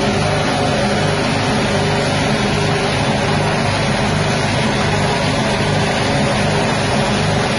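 Rice husk grinding machine powered by a 6.5 hp petrol engine, running steadily as it grinds rice husks.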